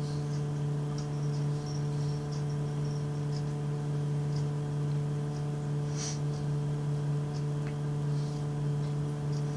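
Steady low electrical hum in a small room, with faint short high-pitched ticks scattered through it and one slightly louder tick about six seconds in.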